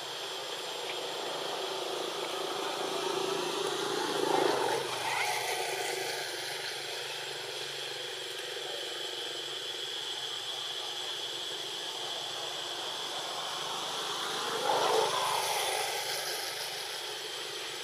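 Two motor vehicles pass one after the other, each swelling over a few seconds and fading again, the second about ten seconds after the first. Underneath is a steady outdoor hiss with a constant high insect-like drone.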